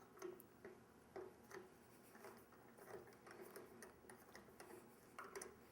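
Faint, scattered light clicks and taps, irregularly spaced: a bowl blank being handled and fitted onto a scroll chuck as its jaws are expanded into the bowl's recess.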